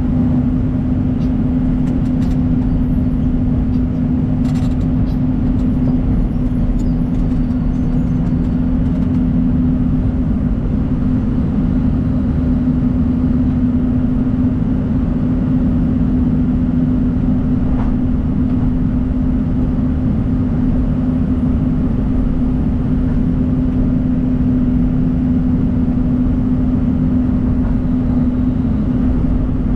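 John Deere 250G excavator's diesel engine running steadily at a constant speed, a loud even drone with no revving up or down.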